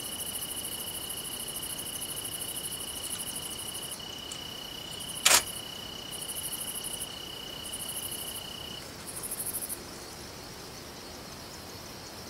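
Insects singing: a steady high trill that stops about nine seconds in, over a higher, pulsed buzz that comes and goes in bouts of about a second. A single sharp click about five seconds in.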